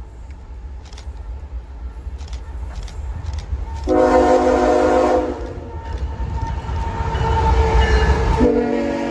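Diesel locomotive horn sounding two blasts, the first about four seconds in and the second starting near the end, over the low rumble of a passing train that grows louder as it comes close.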